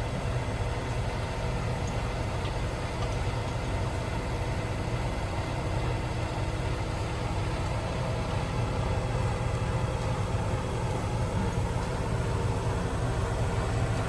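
Mobile crane's diesel engine running steadily under load, a low, even hum as it powers the crane while a slung load is swung.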